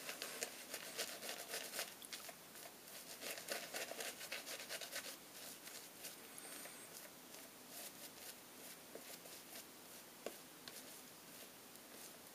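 Boar-bristle shaving brush scrubbing soap lather onto a stubbled face: a faint, quick, scratchy swishing of many short strokes, busier for the first five seconds or so and lighter after.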